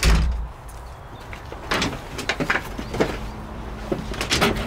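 Cab door of a Takeuchi TB335R mini excavator being worked: a heavy thud at the start, then a run of short clicks and knocks as gloved hands handle the door and fittings in the doorway.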